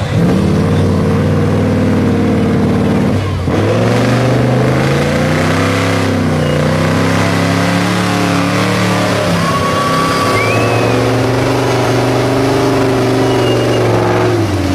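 Off-road truck's engine revving hard under load as it churns through a muddy water pit and up a steep bank. The pitch rises and falls, dropping briefly about three and a half seconds in.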